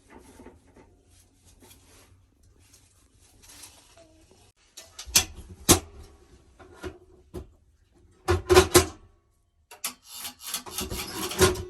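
Water well pump making harsh rasping, grinding noises in three bursts, the last and longest near the end. The noise is feared to be the pump seizing up.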